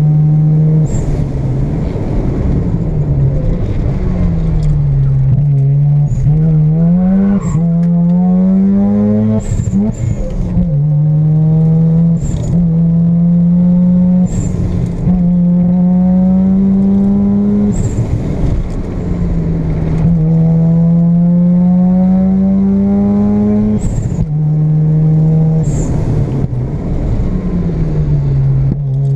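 Mazda RX-7 FC's twin-rotor 13B rotary engine running hard through the gears, heard from inside the cabin: its pitch climbs under acceleration and drops sharply at each gearchange or lift for a corner, with short sharp noises at several of the shifts.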